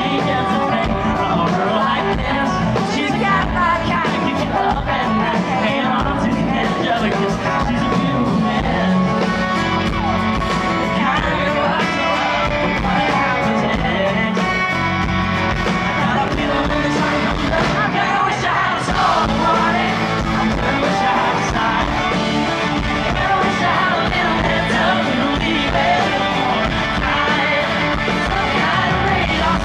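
Live country-pop band playing loudly with a male lead singer, fans in the crowd yelling along.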